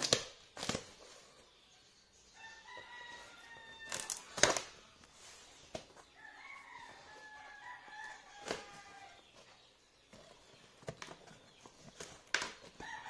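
Box cutter slitting the packing tape on a cardboard box, with a few sharp scrapes and knocks, the loudest a little over four seconds in. A rooster crows twice, long calls near the start and again midway through.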